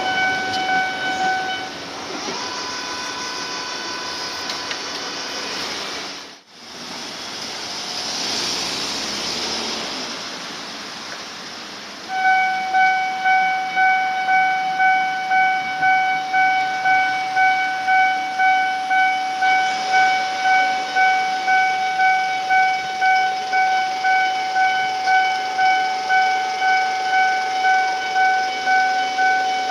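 Japanese railway level-crossing alarm on the Tobu Noda Line sounding its high-pitched electronic tone. It starts about 12 seconds in and repeats about twice a second, the crossing warning that a train is coming. Before that, an earlier alarm breaks off under passing-train noise, which carries on for several seconds.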